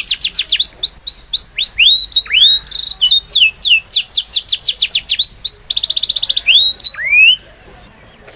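Bird song: quick runs of high whistled notes that each fall in pitch, with a fast trill about six seconds in, then the song stops about seven seconds in.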